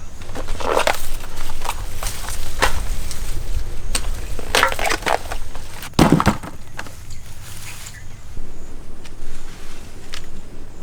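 Dry plant material crunching and snapping in a string of irregular crackles, the loudest about six seconds in.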